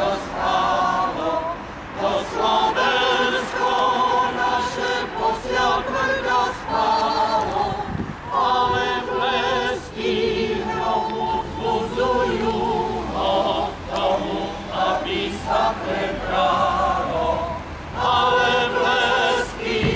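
A mixed choir of men and women singing, with short breaks between phrases.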